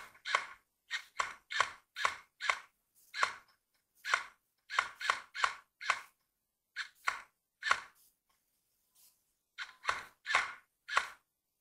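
Airsoft guns firing single shots at close range: a long, irregular run of sharp cracks, two or three a second, pausing briefly about eight seconds in.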